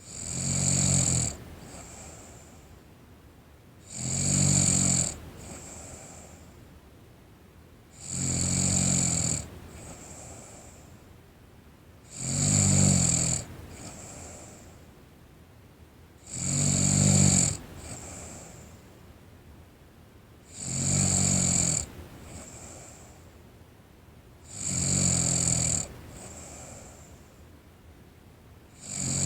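A teenage girl snoring in her sleep: eight loud snores on the in-breath, evenly about four seconds apart, each followed by a fainter breath out.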